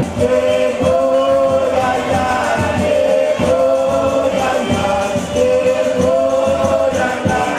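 A group of voices singing a folk song together in long held notes, with percussion beneath.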